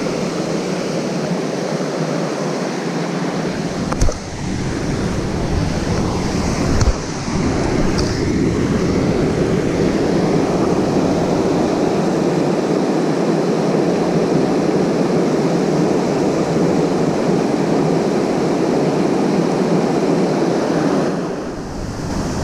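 Steady rushing of a creek's small waterfall and rapids, with two short knocks about four and seven seconds in.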